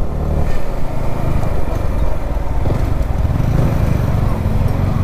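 Yamaha R15 V4's single-cylinder 155 cc engine running under way, with wind and road noise, as the bike slows from cruising to a crawl.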